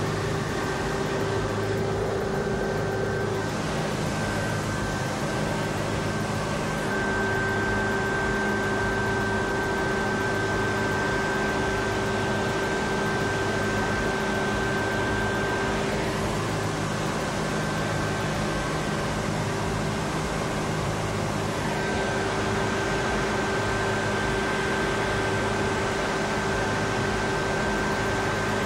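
Steady mechanical drone with a constant mid-pitched whine and a higher whine above it, over a low hum that pulses slowly and evenly.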